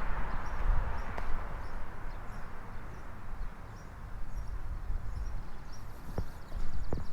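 Footsteps on a hard surface while walking, with a steady low rumble of wind on the microphone and a few sharp steps near the end.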